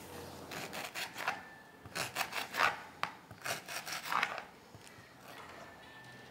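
Kitchen knife cutting through leafy greens against a plate: short scraping strokes in a few quick runs, then fading near the end.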